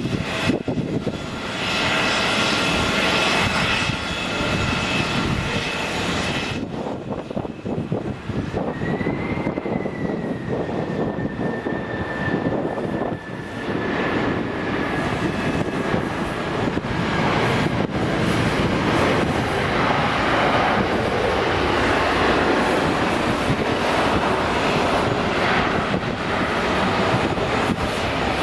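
Boeing 747-400 jet engines running during landing: a steady loud rush of jet noise with a high fan whine. About eight seconds in, the whine rises briefly, then falls slowly and gradually fades into the rush.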